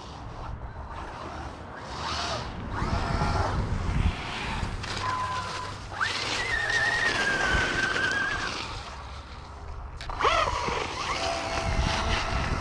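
Brushless electric motor of an Arrma Mojave 4S RC monster truck on 5S power, whining as it revs up and down in bursts while the wheels spin with almost no grip in snow. A whine climbs sharply about six seconds in, holds high and eases off over about two seconds, then climbs again near ten seconds.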